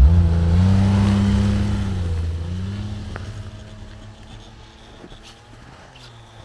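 BRP Ski-Doo Grand Touring 1200 snowmobile with its four-stroke three-cylinder engine revving as it pulls away, the pitch rising over the first second and holding. It then fades steadily as the machine drives off into the distance.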